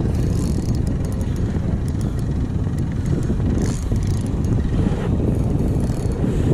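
Wind rumbling on the microphone, with faint scattered ticks and clicks from a spinning reel being worked while playing a large fish.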